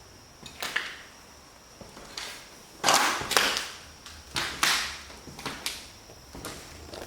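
Irregular scuffing footsteps on a hard floor, about ten short steps, the loudest about three seconds in.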